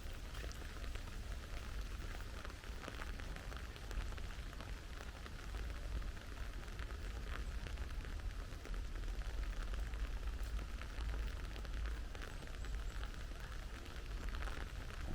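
Steady rain falling, with a dense patter of fine drop ticks over a constant low rumble.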